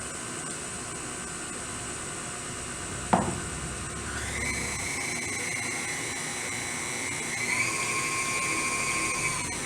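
KitchenAid stand mixer running as it mixes thin, liquid cupcake batter. There is a sharp knock about three seconds in. About a second later the motor's whine rises in pitch as the speed is turned up, and it steps higher again near the end.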